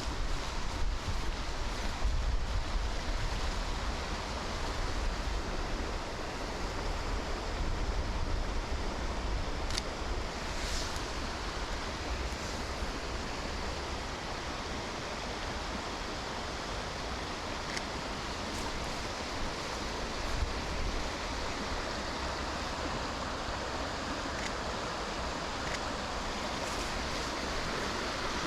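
Rainy riverside forest ambience: a steady rush of water and wind, with low wind buffeting on the microphone during the first several seconds and a few faint ticks.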